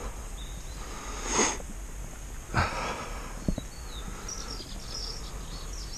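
Outdoor morning ambience with a steady low rumble. Two short breathy noises like sniffs come about a second and a half in and again near three seconds, followed by a click. Near the end there is a run of quick, high bird chirps.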